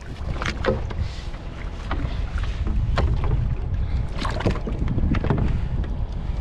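Wind buffeting the microphone aboard a kayak, a steady low rumble, with scattered knocks and water splashes against the boat throughout.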